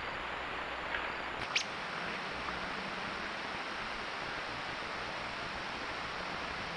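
Steady outdoor background hiss with a few small clicks, the sharpest about a second and a half in.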